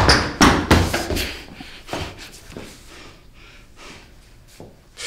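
A few loud thumps and knocks close together in the first second, then scattered faint knocks in a quiet room.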